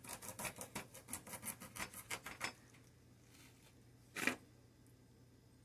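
Quick rasping rubs against a lime's rind, about five a second for two and a half seconds, then one short scrape about four seconds in.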